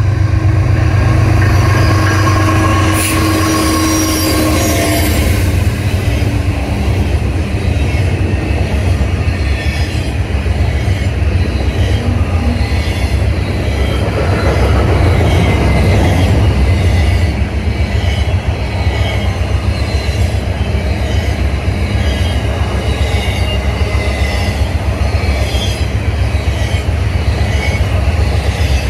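CSX diesel freight locomotives running past in the first few seconds, then double-stack container well cars rolling by with steady wheel-on-rail noise. Thin high-pitched wheel squeal and regular clicking run through the passage.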